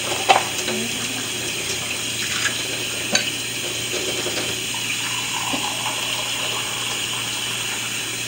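Kitchen faucet running steadily into the sink, left running so the water comes warm. There is a sharp click just after the start and another about three seconds in.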